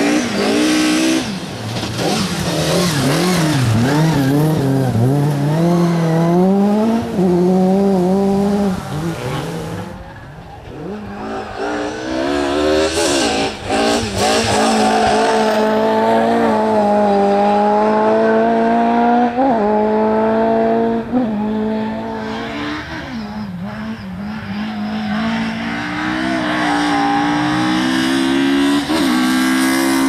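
Ford Sierra RS500 Cosworth rally car's turbocharged four-cylinder engine at full throttle, its pitch climbing and dropping sharply again and again through gear changes and lifts. About ten seconds in the sound cuts briefly, then the engine carries on revving the same way.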